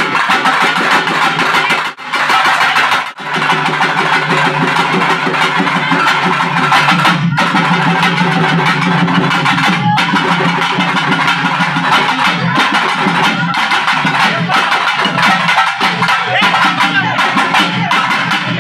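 Pambai drums, the Tamil laced cylindrical folk drums, beaten with sticks in a fast, dense, driving rhythm. The playing breaks off for a split second twice near the start.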